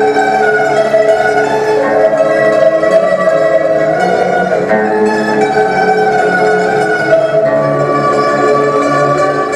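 A quartet of Chinese pipas playing together, several lutes sounding long held notes that overlap and change pitch a few times.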